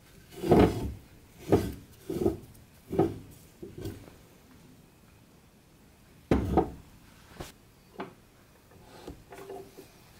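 A heavy block of old tree root knocking and scraping on a metal lathe bed as it is turned over by hand. The knocks come about once a second, pause for a couple of seconds in the middle, then return, fainter near the end.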